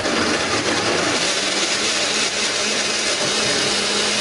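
Electric blender running steadily, grinding shallots, garlic and curly red chilies with a little water or oil into a spice paste. A constant motor hum sits under the whir of the blades.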